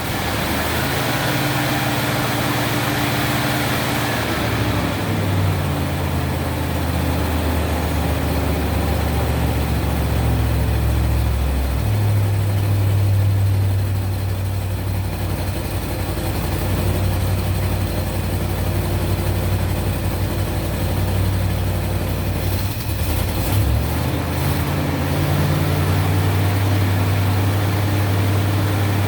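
1970 Mercury Cougar's V8 engine running at idle just after starting on the key, now that the repaired engine wiring harness lets it crank from the ignition. The idle speed shifts a few times, about 5, 12 and 23 seconds in.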